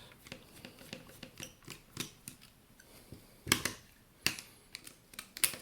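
Plastic parts of a cheap digital camera clicking, knocking and snapping as the camera is taken apart by hand. The clicks are irregular, with the loudest ones a little past halfway.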